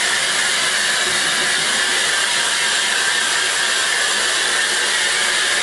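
Handheld hair dryer blowing steadily, a constant airy hiss at one unchanging speed.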